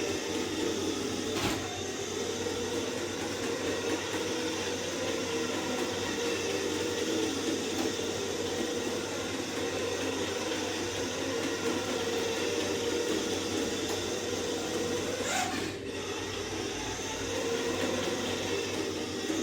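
Radio-controlled toy Mini Cooper S driving, its small electric motor and gear drive whirring steadily, with a short click about a second and a half in and another near the end. This is a test run for a knocking rattle that the owner's steering-linkage changes have not cured.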